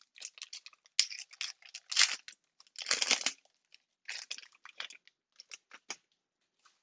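A foil trading-card pack wrapper being torn open and crinkled in the hands, in uneven crackling bursts that are loudest around two and three seconds in, with a sharp click about a second in.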